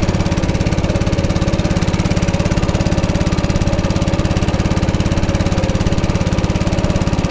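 Small engine of an outrigger fishing boat running steadily under way while trolling, with an even pulse.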